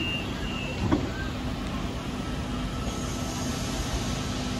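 Sydney Trains electric suburban train standing at the platform with its doors shut, giving a steady rumble and hum. The pulsed door-closing warning beeps end just under a second in, followed by a single thump. A faint high whine comes in about three seconds in.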